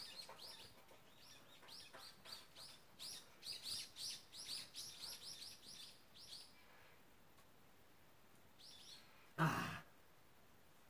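A small bird calling in a rapid series of short, high chirps, about three or four a second, which stop about six seconds in, with a few more just before a short burst of noise about nine and a half seconds in.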